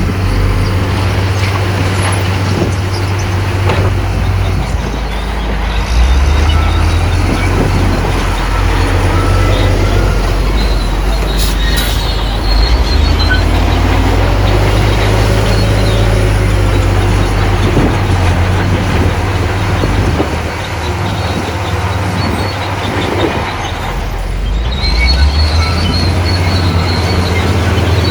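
Heavy diesel earthmoving machinery working: a deep engine running under varying load, swelling and easing, with a few brief high metallic squeaks.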